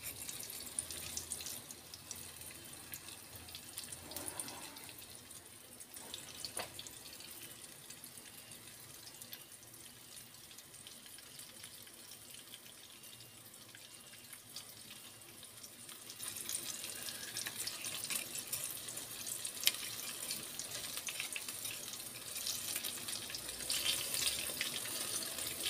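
Wonton-wrapped banana rolls sizzling in a shallow layer of oil in a frying pan, a steady hiss with small crackles and pops; the sizzle gets louder about two-thirds of the way through.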